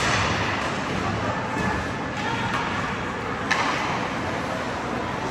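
Ice hockey game in an indoor arena: a steady din of spectators talking and rink noise, with one sharp knock about three and a half seconds in.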